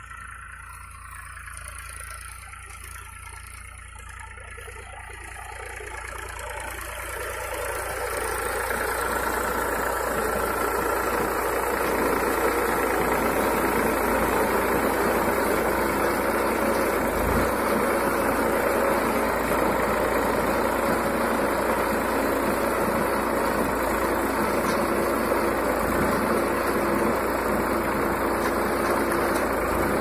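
Tractor engine running while pulling a round baler through straw, the baler's pickup and chamber working. It grows steadily louder over the first ten seconds or so as the machine comes close, then runs steady.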